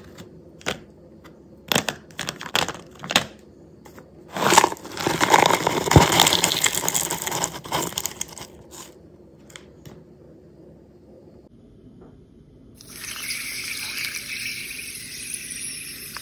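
Chunks of dry clay and chalk clicking as they drop into a plastic bowl, then a loud crumbly rattle as a container-load is poured in. After a quiet pause, a steady high hiss of water and fizzing bubbles as the dry clay soaks.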